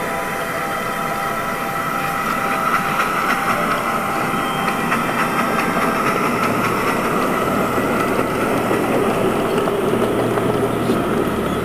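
A 7½-inch gauge ride-on train rolling across a wooden trestle: a steady rumble of wheels on rail with many small clicks, slowly getting a little louder.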